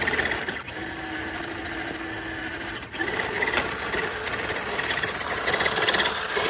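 Small electric motor and gears of a radio-controlled rock-crawler truck whining as it crawls over rock, a steady whine for a couple of seconds, then a short break about three seconds in and a louder, rougher whine.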